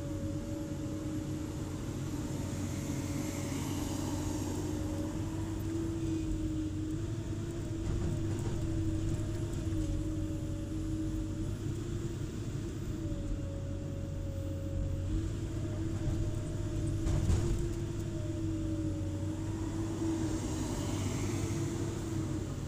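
Komatsu hydraulic excavator's diesel engine and hydraulics running under load, heard from inside the cab: a steady drone with a whine that wavers slightly in pitch as the boom and bucket work. A single knock stands out about three-quarters of the way through.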